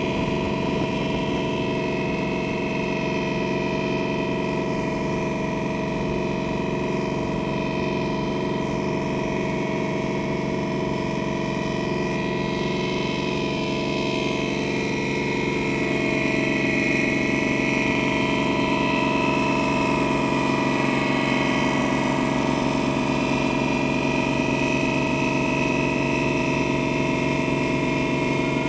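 Boat engine running steadily with an even hum, a little louder from about halfway through.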